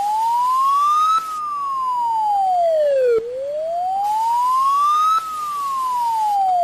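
Emergency-alert wailing siren tone: a single electronic pitch slowly rising and falling, about two seconds up and two seconds down, peaking twice.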